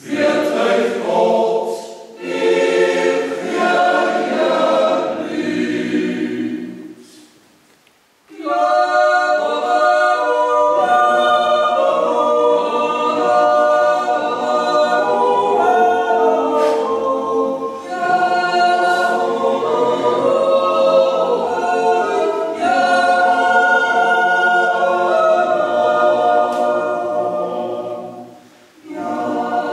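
Swiss yodel club choir of men and women singing a cappella in close harmony, in long held phrases. The singing breaks off briefly about eight seconds in and again near the end before going on.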